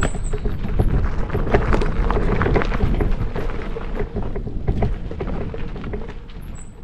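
Gravel bike riding over a rough dirt and stone trail: Panaracer GravelKing 650b tyres crunching over gravel, with a dense run of small rattles and knocks from the bike and a heavy low rumble. The sound fades out over the last couple of seconds.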